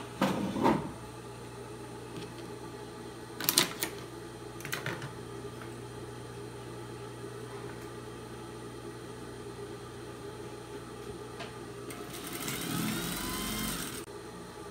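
Industrial sewing machine running in one short stretch of about two seconds near the end, stitching a seam in cotton fabric, then cutting off suddenly. Earlier come a few knocks and clicks of fabric and tools being handled, over a steady low hum.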